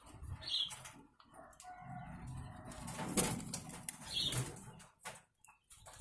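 Barbary doves (puter) in a wire cage: wings flapping in a few short bursts, the loudest a little after the middle, with a low coo from about two seconds in.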